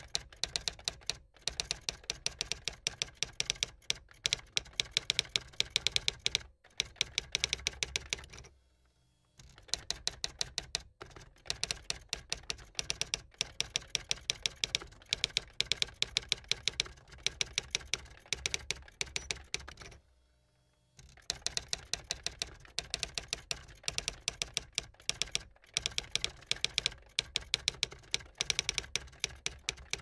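Typewriter being typed on quickly: fast runs of key clacks, many a second, broken by a few short pauses, the longest about a third and again about two-thirds of the way through.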